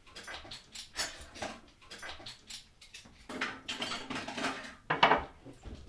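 Dishes and cutlery being handled at a kitchen counter: a quick, uneven run of clinks and knocks of crockery and utensils, some ringing briefly.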